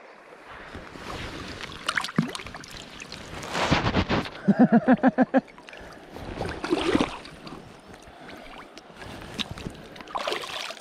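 Shallow river water splashing and sloshing around hands and waders as a salmon is held in the current and let go, in irregular surges. About halfway through comes a rapid string of about eight short pitched pulses, the loudest sound.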